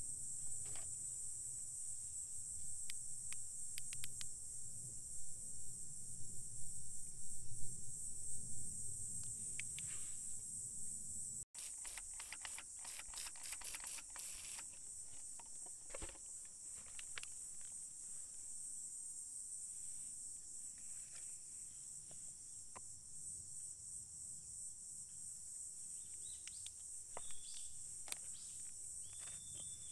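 Steady high-pitched insect chorus, crickets or similar, with scattered faint clicks and taps and a few short high chirps near the end.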